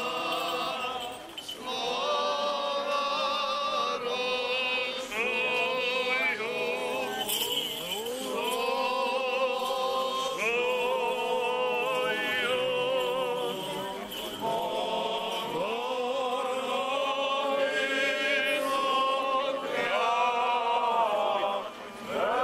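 Orthodox church chant sung by a group of voices walking in procession behind an icon of the Theotokos: unaccompanied, in held, wavering phrases of a few seconds with brief breaks for breath.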